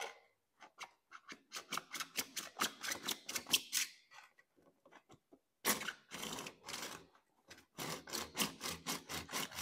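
Hand wood saw cutting through 110 mm plastic drainage pipe: quick back-and-forth strokes, several a second, in three runs with short pauses about four seconds in and about seven seconds in.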